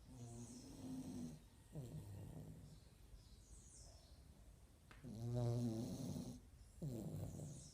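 A dog snoring through two breaths, each a longer snore followed by a shorter one. The second breath, about five seconds in, is the loudest.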